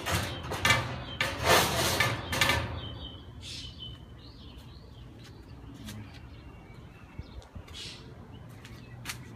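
Several short rustling, scraping noises in the first couple of seconds, then quieter, with a few faint bird chirps and light ticks over a low steady hum.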